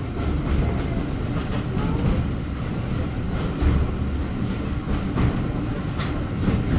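Passenger train running along the track: a steady low rumble with scattered clicks from the wheels and rail joints, one sharper click about six seconds in.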